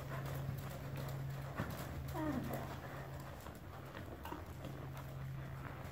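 Horse walking under a rider on sand arena footing, with soft irregular hoofbeats. A steady low hum drops out a few times.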